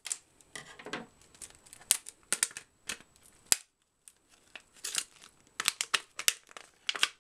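Clear plastic blister pack, glued shut, crackling and crinkling as it is pried and pulled apart by hand, in sharp irregular snaps with a short pause a little past the middle.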